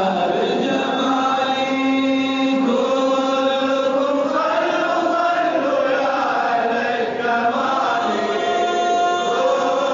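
A man chanting an Arabic madih, a devotional song in praise of the Prophet, in long held notes that glide up and down without a break.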